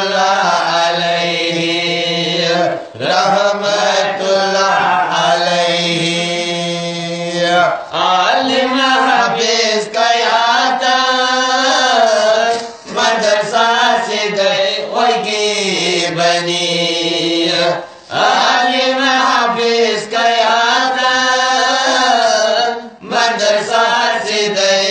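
A man singing a Manipuri marifat devotional song in long, drawn-out phrases that bend up and down in pitch. There are short breaks for breath about every five seconds.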